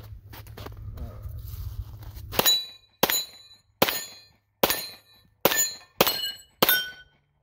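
Wind rumbling on the microphone. About two and a half seconds in, a Glock 34-slide pistol in a Flux brace chassis fires seven quick, evenly paced shots, roughly one every two-thirds of a second. Each shot is followed by a short metallic ring from the steel targets being hit.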